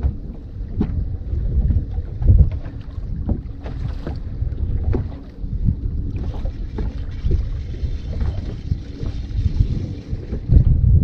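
Wind buffeting the microphone on a fishing boat: an uneven low rumble with scattered low thumps and small knocks.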